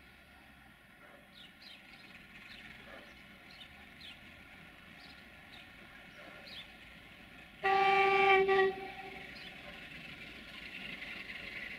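One blast, about a second long, from the horn of a 060-DA (LDE2100) diesel-electric freight locomotive. Toward the end a steady train noise grows louder as the locomotive comes closer.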